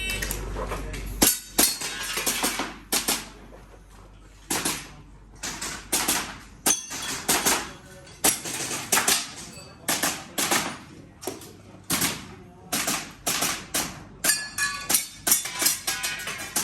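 Airsoft pistol fired in rapid strings of sharp cracks, pausing briefly between groups, as a shooter works through an IPSC-style course of fire. A few shots carry a short ringing tone after them.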